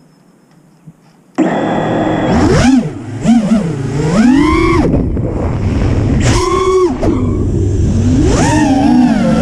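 Racing quadcopter's HGLRC Flame 2306 2450 kV brushless motors and propellers whining, starting abruptly about a second and a half in, their pitch rising and falling again and again with the throttle.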